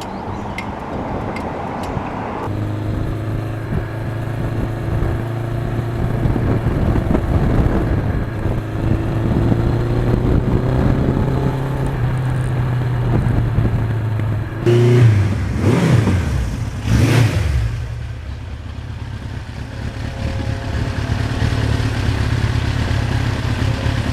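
Suzuki GS1100E's air-cooled inline-four engine running steadily under way, heard from the bike with wind noise on the microphone. The sound changes abruptly about two seconds in, and for a few seconds past the middle it gets louder, with the pitch sweeping down and up.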